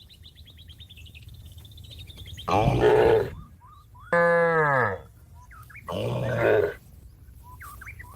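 Cow mooing three times: a rough, hoarse call about two and a half seconds in, a clear moo falling in pitch at about four seconds, and another rough call near six seconds. Small birds chirp faintly between the calls.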